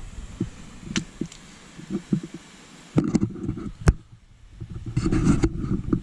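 Gusting low rumble of wind on the microphone, with a few sharp clicks of the camera being handled, the loudest about four seconds in.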